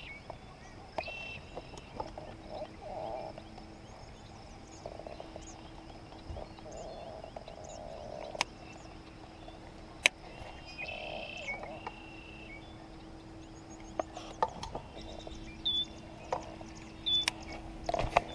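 Frogs croaking, with short bird chirps, over a faint steady low hum. A few sharp clicks stand out, and the loudest comes about ten seconds in.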